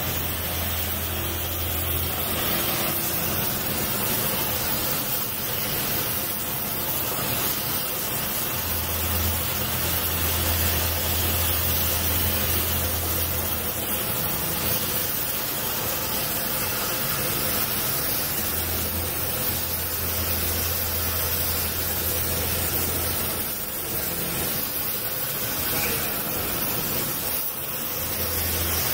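Gas welding torch burning with a steady hiss as its flame is played on steel, with a low hum that comes and goes in the background.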